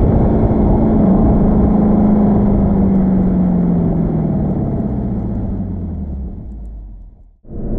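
Sports car engine running, its note slowly dropping in pitch and fading away to almost nothing, before another engine sound cuts in abruptly just before the end.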